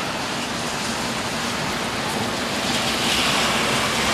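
Heavy rain pouring down on pavement and parked cars, a steady dense hiss that swells slightly about three seconds in.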